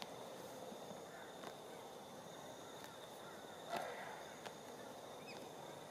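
Quiet outdoor ambience with a steady faint high tone, a few faint knocks, and one short call about four seconds in.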